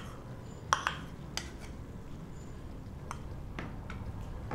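Several sharp clinks and knocks as a bowl and a slotted steel spoon strike a kadai while mashed boiled moong dal is tipped into the pan, the loudest about three quarters of a second in. A faint low hum lies underneath.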